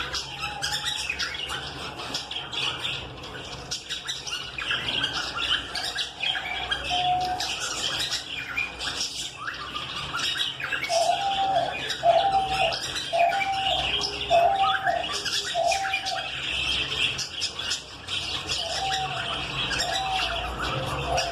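Lovebirds chattering and squawking, a dense run of shrill chirps and calls. Midway a lower note repeats about once a second, five times, with two more near the end.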